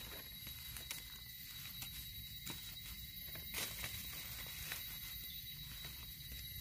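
Faint scattered clicks and rustles of a knife and hands working in dry leaf litter, cutting mushroom stems and picking the caps. A steady high-pitched tone runs underneath.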